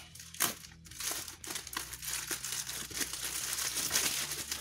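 Plastic courier mailer bag being slit with a knife and pulled open, the plastic crinkling and crackling irregularly, with a sharper tear about half a second in.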